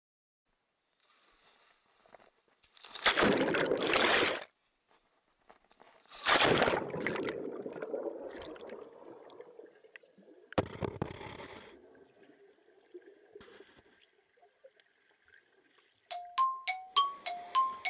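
Water splashing in a swimming pool: sudden loud rushes of splash noise about three and six seconds in, the second fading away slowly, and another splash near the middle. Near the end comes a quick run of bright bell-like dings on two pitches.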